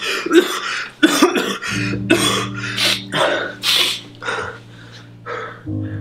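A teenage boy coughing in a long, harsh fit, about a dozen coughs in quick succession that grow weaker and more spaced out in the last couple of seconds. Low sustained music notes sound underneath.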